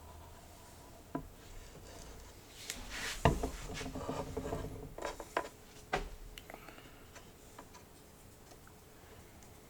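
Small wooden pieces handled on a workbench: a few light knocks and a louder one as wood is set down, with rubbing and scraping between them, then quiet room tone.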